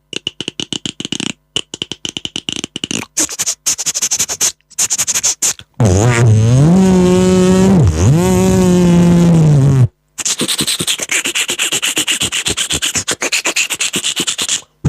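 Beatboxed mouth sound effects: a fast run of clicks and crackles, then a held pitched vocal tone of about four seconds that slides up at the start and dips once in the middle, then another dense run of fast clicks that stops just before the end.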